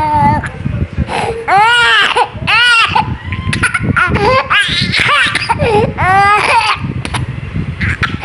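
A young child crying in distress from the discomfort of being sick with a cold: a run of short, high wailing cries with brief gaps between them.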